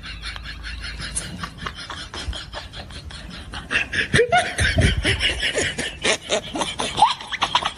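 People laughing, louder and more excited from about three and a half seconds in, with several short squeals rising in pitch.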